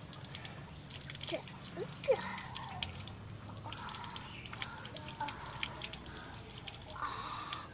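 Water dripping and splashing in quick, irregular drops from a child's water toy, with a couple of short rising squeaks about one and a half and two seconds in.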